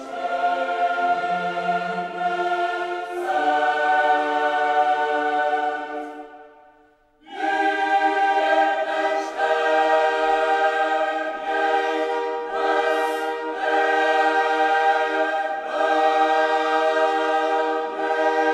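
Background choral music: a choir singing held chords, which fade out about six seconds in and come back a second later.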